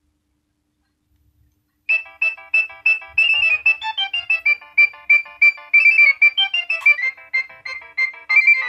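Nokia 6100 ringtone: after about two seconds of silence, a quick melody of short, bright electronic notes starts and runs on.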